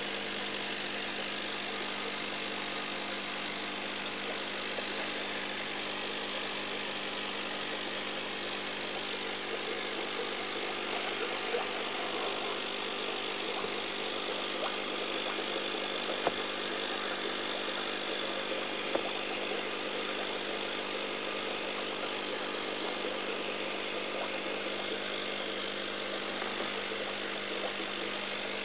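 Steady mechanical hum of running aquarium equipment, with a light hiss over it and a few faint ticks about midway.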